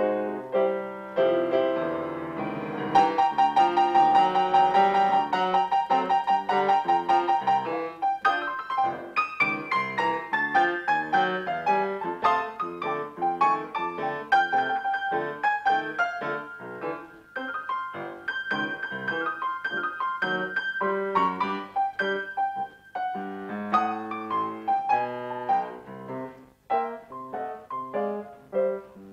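Grand piano played solo in a blues style: an instrumental break of fast runs and chords, with a stretch of rapidly repeated high notes from about three to eight seconds in.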